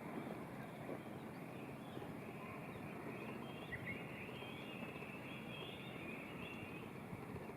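Faint steady background noise with small birds chirping at a high pitch, the chirps thickest in the middle.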